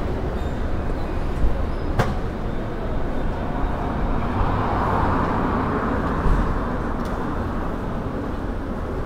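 City street ambience: a steady low rumble of traffic, with a sharp click about two seconds in and a louder swell of noise around the middle.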